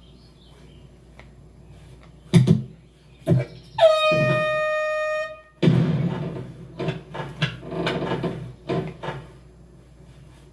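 Film sound effects: two short thumps, then a horn blast held for nearly two seconds with a quick upward scoop at its start, followed by a busy run of rustling, knocks and scuffles.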